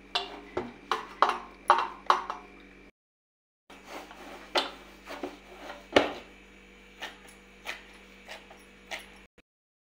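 Hands kneading soft dough in a steel plate: irregular slaps, squishes and sharp knocks against the metal, over a faint steady hum. The sound cuts out completely twice, about three seconds in and near the end.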